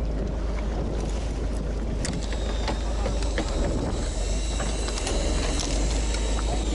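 Electric fishing reel winding line: a high, steady whine with light ticking starts about two seconds in and runs on, over the boat's steady low rumble.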